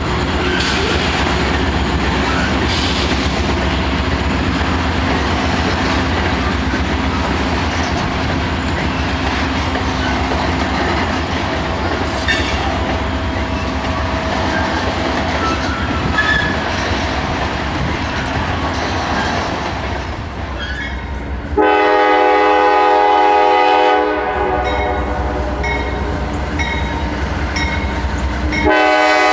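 A train rumbles along the track, its wheels clicking over the rails. About two-thirds of the way through, a diesel locomotive's air horn sounds a chord for a couple of seconds, and it starts blowing again near the end.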